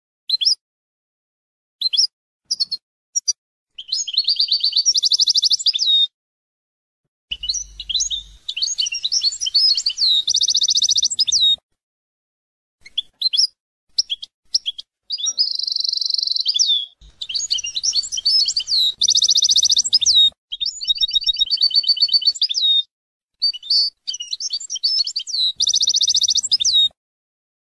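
European goldfinch singing: a few separate chirps, then long phrases of fast twittering notes, trills and buzzy rattles, broken by pauses of about a second. The song stops just before the end.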